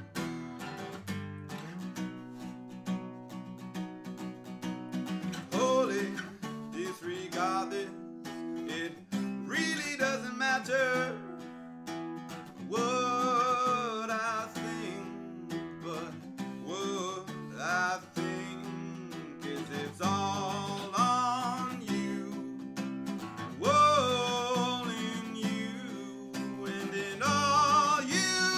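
Acoustic guitar strummed in a steady chord pattern, with a man's singing voice coming in over it about five seconds in and continuing in phrases.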